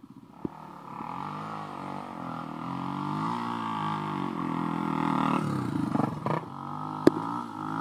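160cc twin-exhaust pit bike's single-cylinder four-stroke engine revving up and down on the throttle, growing louder as the bike comes close and passes. A sharp knock sounds near the end.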